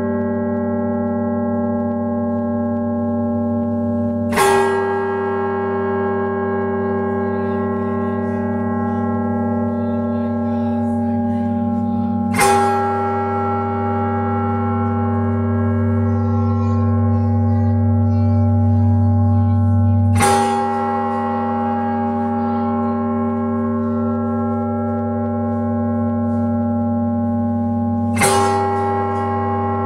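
Large tower bell of the Belfry of Bruges, struck four times about eight seconds apart. Each strike gives a sharp clang, and its deep, many-toned ringing hum carries on unbroken between strikes.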